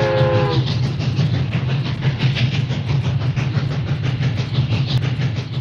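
Train sound effect: a steady rumble with fast, even rail clatter as the wagons run along. A many-toned train whistle ends with a drop in pitch about half a second in.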